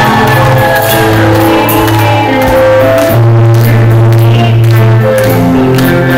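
Rock band playing live in a concert hall, instrumental passage: low held notes under a stepping melody, with regular drum and cymbal hits.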